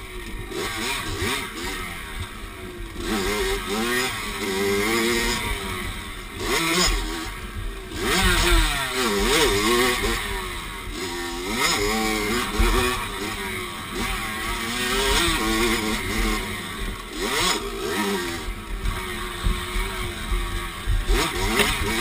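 Dirt bike engine revving up and down over and over, its pitch rising and falling every second or two as the throttle is worked while riding a twisting trail.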